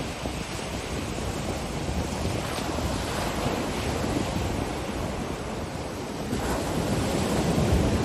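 Ocean surf breaking and washing up a sandy beach, a continuous rushing wash with wind and a deep low rumble under it. A wave builds and grows louder from about six seconds in.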